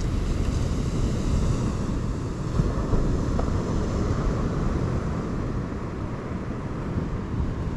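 Wind blowing on the microphone, with a steady rush of surf behind it.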